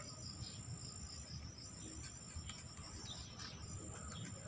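Insects chirring steadily in a high, continuous trill, with a few faint clicks.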